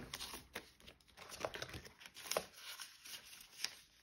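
Banknotes and paper cash envelopes being handled, giving a series of soft rustles and short crinkles as money is tucked into an envelope.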